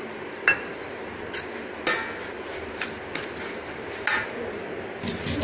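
Steel spoon clinking and scraping against a stainless steel bowl while stirring semolina and curd into a thick batter. There are about six sharp, uneven clinks, the loudest about half a second in.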